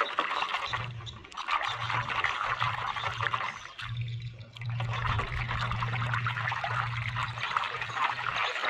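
Water splashing and sloshing in a basin as a hand swishes a toy hermit crab through it to wash it. The splashing stops briefly about four seconds in, while the toy is lifted out, then starts again.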